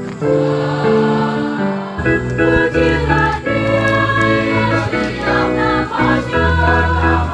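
Background music: a choir singing a slow sacred song in sustained chords, with a deep bass line coming in about two seconds in.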